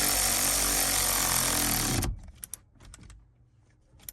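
A power drill running steadily, tightening the nut that holds the armrest to its bracket, cuts off about two seconds in; a few light clicks follow.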